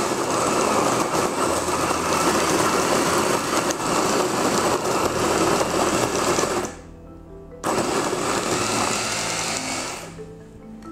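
Electric coffee grinder running, grinding a 15 g dose of coffee beans. It runs steadily for about seven seconds, cuts out for under a second, then runs again for a few seconds before winding down.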